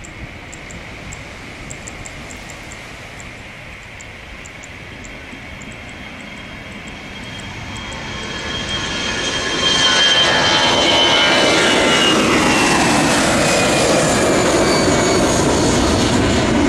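Jet engines of an Airbus A320-214, CFM56-5B turbofans, at take-off thrust. The engine noise grows over the first ten seconds and then stays loud and steady, with a whine that falls in pitch as the jet lifts off and climbs past.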